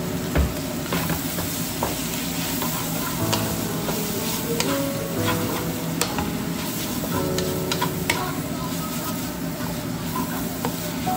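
Sliced cow intestines sizzling and frying in a non-stick wok while a wooden spatula stirs them, with scattered clicks and scrapes of the spatula against the pan over the steady sizzle.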